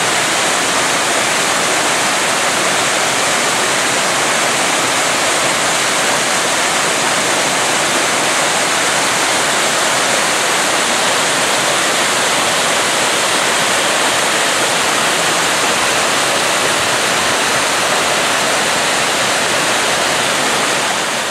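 Waterfall cascading over rocks and fallen logs: a steady, loud rush of falling water.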